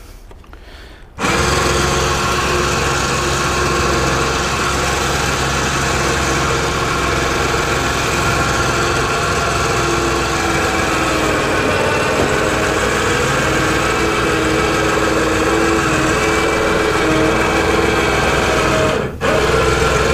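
Battery-powered electric winch motor switched on about a second in and running steadily under load as it hauls an aluminum boat up a ramp, with a brief break near the end.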